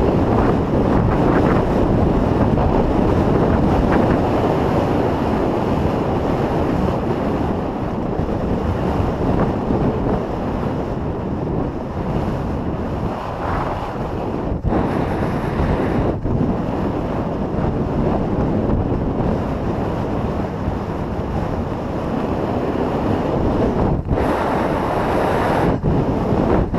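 Loud, steady wind buffeting a GoPro Hero 3's microphone while riding a horse. It is a dense low rumble with no clear hoofbeat rhythm, briefly dropping away a few times.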